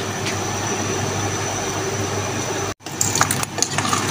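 Steady hiss of a steel pot of beef and spices cooking on the stove. After a brief break about three seconds in, a few light metallic clinks.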